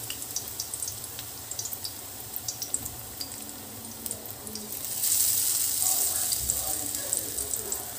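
Besan-battered bread fingers deep-frying in hot oil in a kadhai: a steady sizzle with many small scattered crackles, growing louder about five seconds in.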